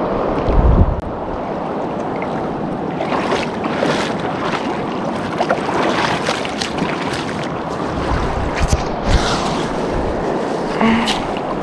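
Steady rush of river rapids, with a brief wind buffet on the microphone just under a second in and scattered short, sharp sounds over it.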